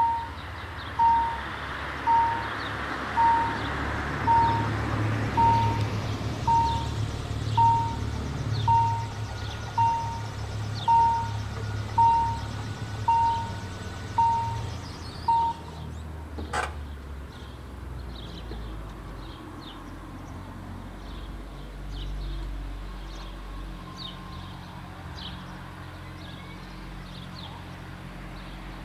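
Level-crossing warning bell ringing about once a second while the crossing barriers come down, stopping about halfway through, followed soon after by a single sharp clack. After that only a low background remains, with faint high chirps.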